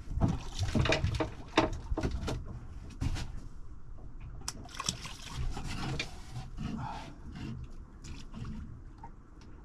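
Water splashing and sloshing at the side of a small boat while a small conger eel is unhooked there, with irregular knocks and clicks of handling. The sounds are busiest in the first six seconds and then grow sparser.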